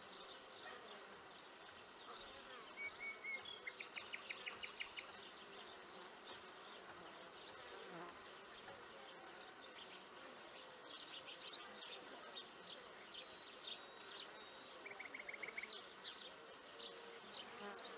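Bees buzzing steadily, with many small birds chirping and singing over them, including a quick trill of rapidly repeated notes about four seconds in and another near fifteen seconds.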